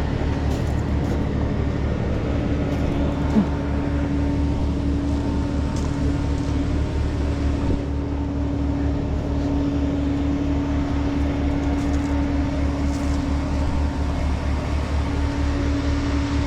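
Tractor diesel engine running steadily, with a deep, even low throb and a steady hum above it, and one short knock about three and a half seconds in.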